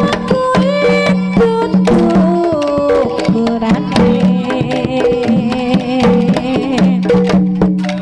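Live jaranan gamelan music played loud through a sound system: hand-drum (kendang) strokes keep a quick, busy rhythm under held low tones and a wavering, gliding melody line.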